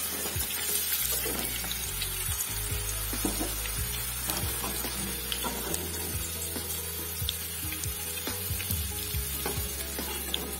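Capsicum and carrot pieces sizzling steadily in hot oil in a kadai, with scattered light scrapes and taps of a perforated steel skimmer as the pieces are stirred and lifted out of the oil.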